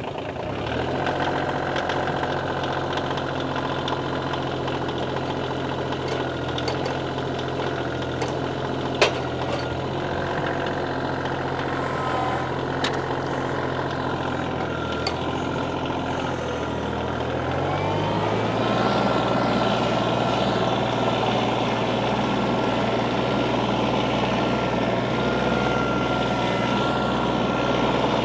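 Kioti CK2510 compact tractor's three-cylinder diesel engine idling steadily, then throttled up about two-thirds of the way through, its pitch rising and holding higher. One sharp click about nine seconds in.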